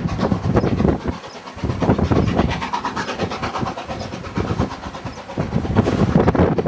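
Wind buffeting the microphone over the working exhaust of HSB narrow-gauge steam locomotive 99 7241-5, a 2-10-2 tank engine, climbing toward the summit while still out of sight.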